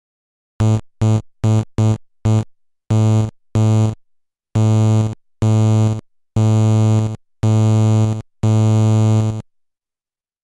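An Amiga OctaMED synth instrument playing one low note about eleven times, first short quick notes, then longer held ones. Each note holds at full volume and then fades out, the volume envelope of a wait followed by a change-down fade in the instrument's volume list.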